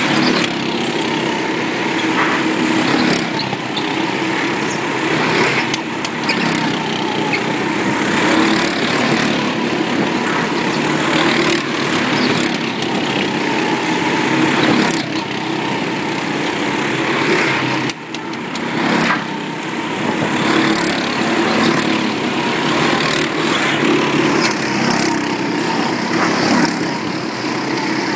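Several small go-kart engines running at racing speed as the karts lap the track, swelling each time a kart passes close by, with a short lull about eighteen seconds in.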